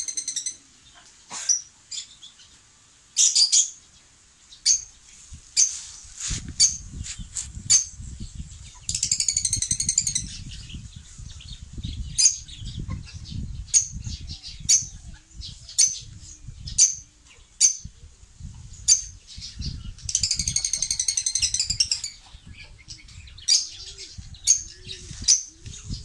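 Small birds chirping, with short high calls about once a second and a longer warbling trill three times. From about six seconds in there is a low rustling rumble under the calls.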